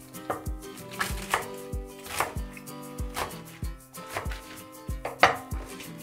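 Kitchen knife chopping komatsuna stalks on a wooden cutting board: a handful of separate cuts, the sharpest one near the end. Soft background music with a steady beat runs underneath.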